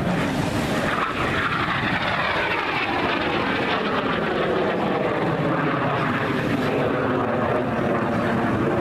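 Aermacchi MB-339 PAN jet trainer's turbojet engine passing close and climbing away, a loud steady jet noise whose whine falls in pitch as the aircraft goes by.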